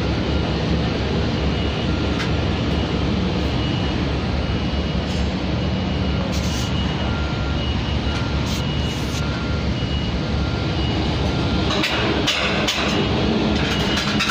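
Steady, loud running noise of heavy construction-site machinery. A faint tone sounds in short repeated beeps over it, and a few sharp metallic knocks come near the end.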